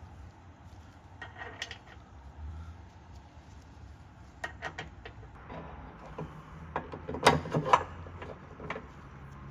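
Scattered clicks and knocks of tools and car parts being handled during underbody restoration work, with a louder burst of clattering about seven seconds in over a faint low hum.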